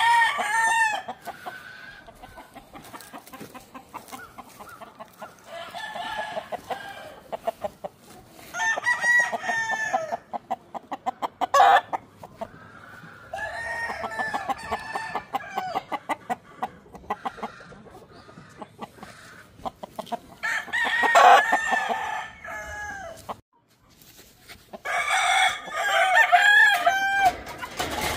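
Roosters crowing about six times, each crow drawn out over one to three seconds, with hens clucking in between.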